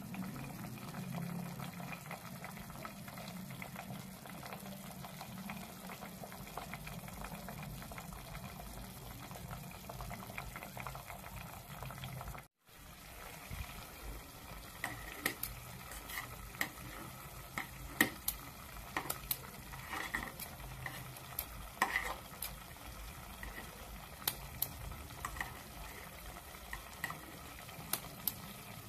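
Food simmering in liquid in a steel saucepan on a stove, a steady low bubbling. From about halfway in come sharp, irregular clicks and taps as a metal utensil cuts the pieces in the pot and knocks against its side.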